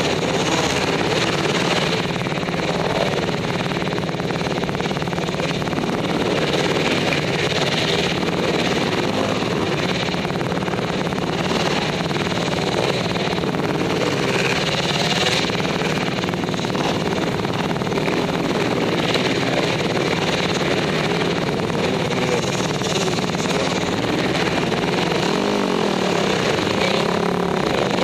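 Dirt bike engine running hard close to the camera as the bike is ridden around a dirt track, revving up and down with the throttle, with other dirt bikes running nearby. The pitch sweeps up and down several times near the end.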